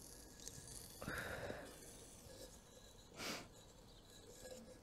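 Faint sniffing and breathing from a person bothered by wood smoke: a breath about a second in and a sharper sniff a little after three seconds.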